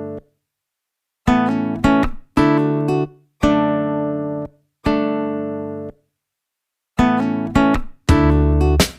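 Background music: plucked guitar chords, each ringing and fading, then stopping short before the next.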